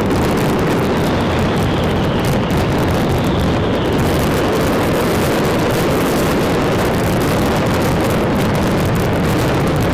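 A fireworks display in a dense, non-stop barrage: countless overlapping bangs and crackles merging into one loud, steady rumble.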